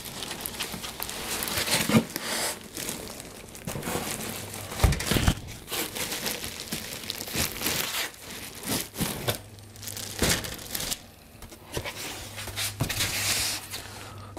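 Clear plastic bag around a computer case crinkling and rustling as white foam packing end caps are worked off it, with a few dull knocks in between.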